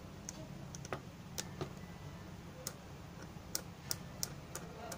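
A dozen or so small, sharp, irregular ticks and scratches as a blade is scraped across the contacts of a keypad phone's display ribbon cable to clean them, over a steady low hum.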